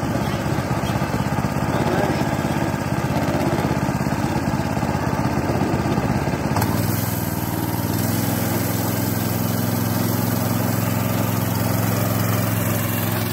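Small single-cylinder go-kart engine idling, then running faster and steadier from about halfway through as the kart pulls away under load.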